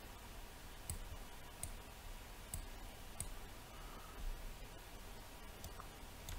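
Faint computer mouse clicks, about four of them in the first few seconds, over a low steady hum.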